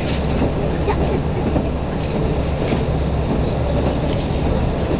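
Inside a KiHa 185 diesel railcar running at speed: a steady low engine drone and rail rumble, with a few sharp clicks from the wheels on the track.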